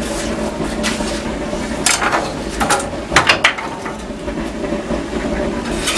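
Bakery room noise: a steady hum with a few sharp knocks and clicks, a short clatter of them about three seconds in.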